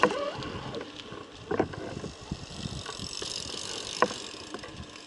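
Mountain bike being ridden: a steady hiss of tyres and wind, with scattered clicks and rattles from the bike.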